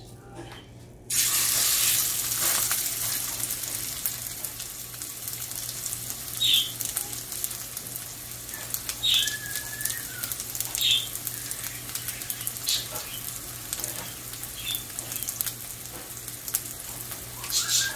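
Chicken chapli kabab frying in hot oil: a loud sizzle starts suddenly about a second in and slowly dies down.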